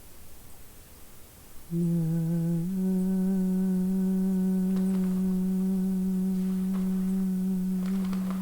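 A woman's voice holding one long, low note. It comes in about two seconds in with a slight waver, then settles into a steady hum, with a few faint clicks in the background near the end.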